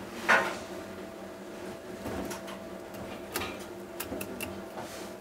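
Kitchen knife and fingers working a scorpionfish fillet on a plastic cutting board, shaving away the belly bones: a short scrape just after the start, then several light clicks and taps of the blade against the board.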